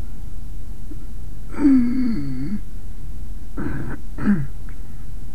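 A woman's wordless voice: one drawn-out sound of about a second that falls in pitch, then two short ones a little later, over a steady low hum.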